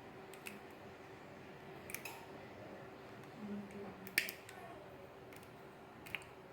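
A few light, sharp clicks and taps from handling electrical wires and small hand tools, the loudest about four seconds in, over a faint steady hum.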